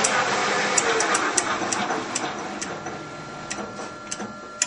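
Lathe driven by a 5 hp motor through a variable frequency drive running, its noise dropping away as the speed is turned down, while the 72-detent speed dial clicks through its spring-loaded ball detents several times a second. A faint steady whine comes in over the last couple of seconds.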